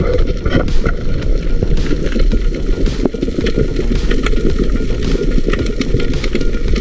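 Muffled underwater noise picked up through a camera's waterproof housing: a dense low crackling and rumbling of water moving around the camera, with scattered sharp clicks.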